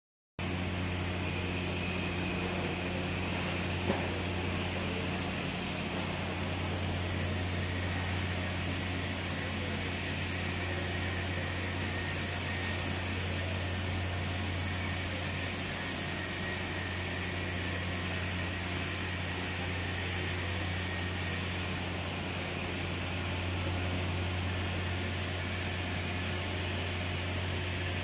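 Steady electrical hum of a TIG welding setup working on stainless steel pipe fittings, with a faint high hiss that joins about seven seconds in and fades around twenty-one seconds. One small tick comes about four seconds in.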